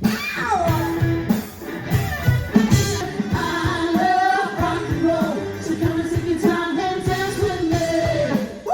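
Pop song with a singer over a band and a steady drum beat.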